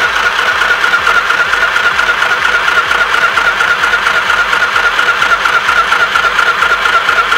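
Mini portable sewing machine (SM-202A) running at steady speed, its small electric motor driving the needle through cloth: a steady whine with a fast, even rattle of needle strokes.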